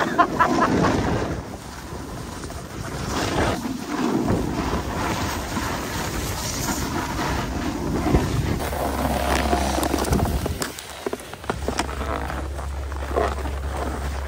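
Wind buffeting the microphone while riding a snowboard downhill, with the board hissing and scraping over the snow.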